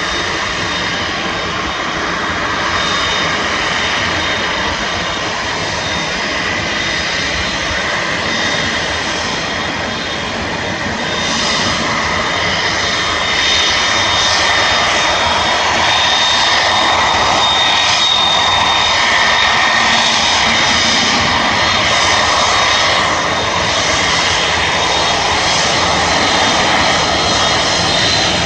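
Jet engines of an Airbus A330-302 airliner running with a steady whine, growing louder about twelve seconds in and staying loud.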